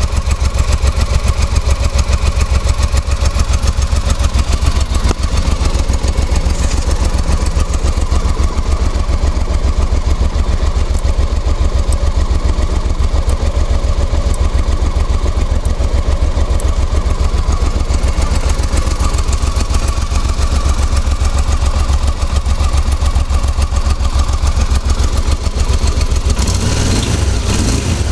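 Honda Africa Twin motorcycle engine idling steadily with an even, rapid pulse, carrying the clutch noise that remains after new clutch bearings and clutch springs were fitted. The sound shifts briefly near the end.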